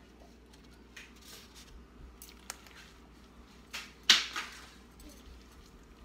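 Quiet handling sounds from gloved hands patting crab cake mixture into patties on a plastic cutting board, then a sharp scrape and rustle about four seconds in as a gloved hand scoops more mixture from a plastic bowl.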